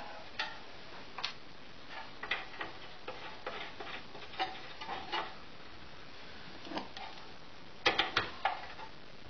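Light metallic clicks and scrapes as a spark plug is threaded into a Villiers stationary engine's cylinder head and nipped up with a plug spanner, with a quick run of three or four clicks near the end.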